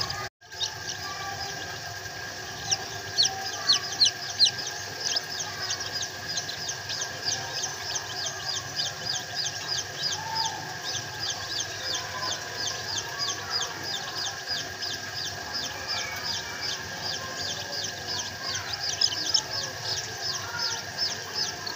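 A flock of bantam and silkie chicks peeping: a continuous stream of short, high, falling peeps, several a second, busiest a few seconds in and again near the end.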